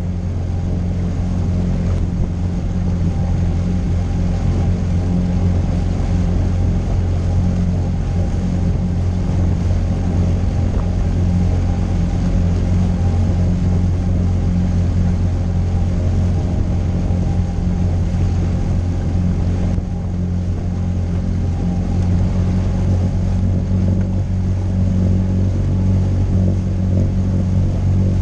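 Suzuki DF20A four-stroke outboard motor running steadily under way, pushing a small aluminium boat, heard from aboard the boat.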